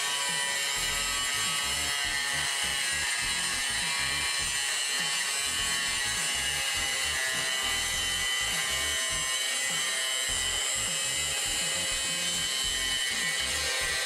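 Handheld angle grinder running steadily against the steel sheet metal of a car body, a continuous high-pitched grinding whine.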